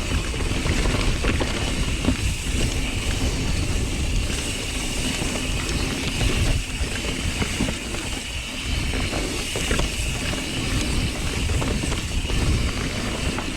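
Mountain bike riding down a rough dirt trail: tyres rumbling over the ground, with the chain and frame rattling and clicking over bumps, and wind noise on the microphone.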